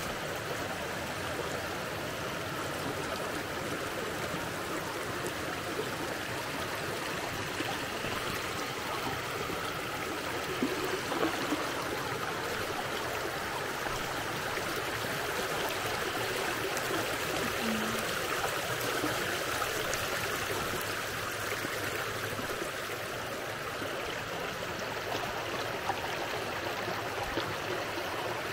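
Shallow, rocky forest stream running over stones and a small cascade: a steady rush of water.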